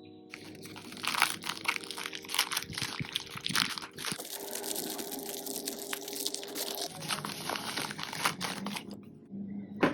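Packaging being handled, crinkling and rustling with many quick crackles, and a sharp click near the end.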